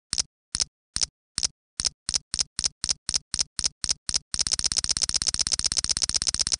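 A run of sharp, bright clicks, about two a second at first and quickening to about four a second. About four seconds in they speed up into a fast, continuous clatter.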